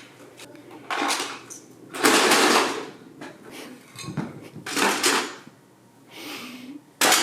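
Handling noises from unpacking a computer case: a few separate bursts of clattering and rustling as hard parts and packaging are moved and set down, the longest about two seconds in.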